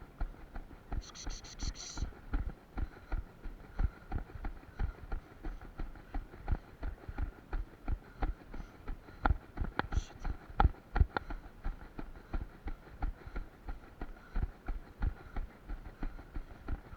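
A runner's footfalls in a steady rhythm of about three a second.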